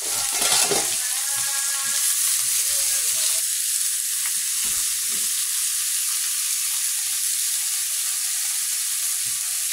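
Whole shrimp frying in a pan with garlic and onion, sizzling steadily, while a spatula stirs and scrapes them around with occasional knocks against the pan.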